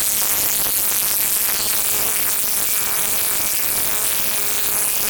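Impact wrench hammering steadily as it drives a 1/2-inch anchor bolt down into the concrete slab, a loud, fast, buzzing rattle.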